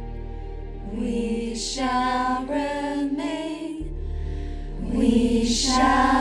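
Music: voices singing a slow, chant-like melody in long held notes, growing louder near the end.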